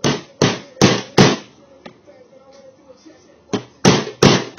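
Hammer strikes knocking a roll pin out of an airsoft rifle's bolt: four sharp blows in quick succession, a pause of about two seconds, then four more.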